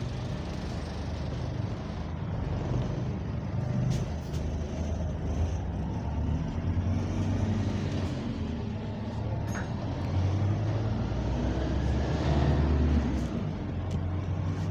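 Interior running noise of a double-decker bus on the move, heard from the upper deck: a continuous low engine and drivetrain drone that swells and eases with the bus's speed, loudest about twelve seconds in.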